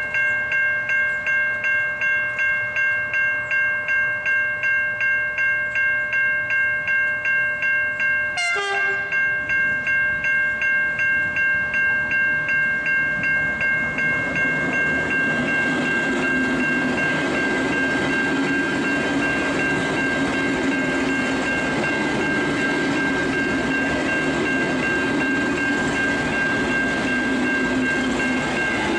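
Level crossing warning bell ringing in rapid, even strokes, about two and a half a second, as a V/Line VLocity diesel railcar set approaches and runs through the crossing. There is a short falling sweep about eight seconds in. From about halfway the train's rumble and wheel noise build up under the bell.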